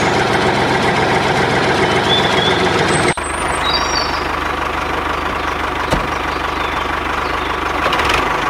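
Tractor engine idling steadily. The sound breaks off and picks up again a little quieter about three seconds in.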